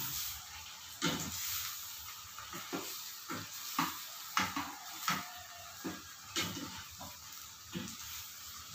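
A slotted spatula stirring and scraping shrimp and vegetables around a stainless steel pan, in short irregular strokes about every half second, over a low sizzle of the food cooking.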